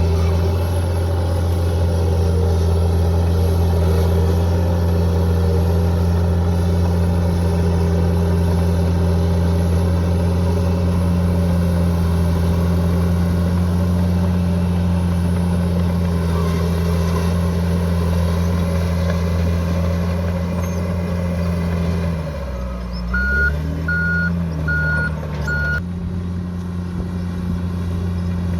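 Bulldozer's diesel engine running steadily. About three-quarters of the way through, the engine note drops and a reversing alarm beeps four times as the machine backs up, then the steady engine sound returns.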